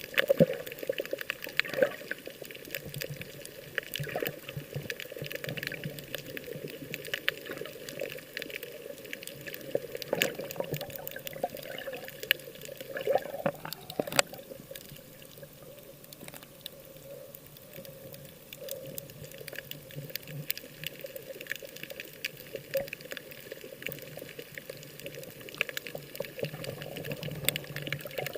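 Sea water sloshing and splashing close by, with many small crackles and clicks.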